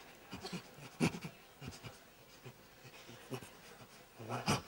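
Irregular soft knocks and rustles of people moving about a stage, with a louder knock about a second in and a louder rustle near the end.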